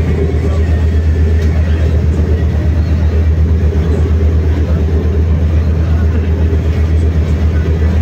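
Passenger ferry's diesel engine running underway, a deep, steady, rapid throb, with an even rushing noise over it.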